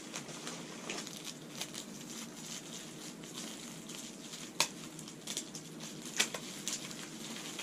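Packaging and paper being handled: soft rustling and crinkling, with scattered light clicks. The sharpest click comes about halfway through, and another a little later.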